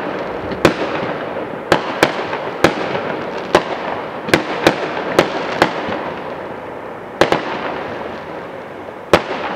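Aerial fireworks: shells bursting in the sky, about a dozen sharp bangs at irregular intervals, some in quick pairs, over a continuous crackle that thins out near the end.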